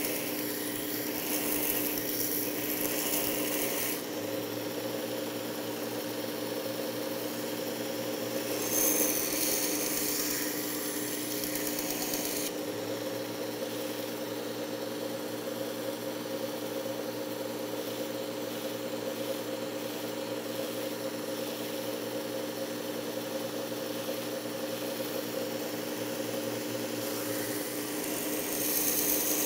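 Belt of a Work Sharp Ken Onion Edition knife sharpener with Blade Grinding Attachment running with a steady motor hum, while the steel spine of a paring knife is ground on its coarse 120-grit belt to rebuild a broken tip. The grinding hiss comes in passes: during the first few seconds, again around nine to twelve seconds in, and near the end. Between passes only the motor runs.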